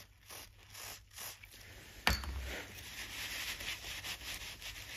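A few short hisses of aerosol cleaner sprayed in bursts into a ratchet head, then a sharp knock about two seconds in, followed by a paper rag rubbing over the ratchet.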